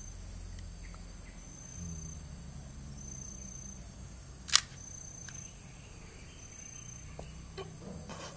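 A dog growling low, guarding its rawhide chew as a hand reaches for it. One sharp click sounds about four and a half seconds in.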